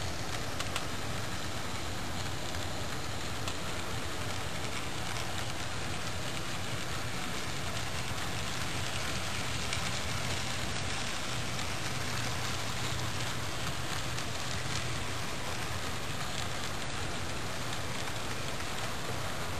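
HO-scale model grain train of covered hoppers rolling along the track: a steady crackling rattle of the cars' wheels on the rails over a low hum.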